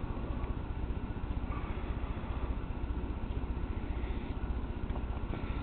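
Motor of a Lionel #8E Standard Gauge toy locomotive running steadily on a test after repair, a continuous mechanical whir over a low hum.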